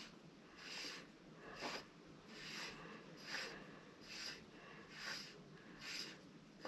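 A person breathing hard and fast after heavy exertion, faint, with a short hissy breath roughly every second.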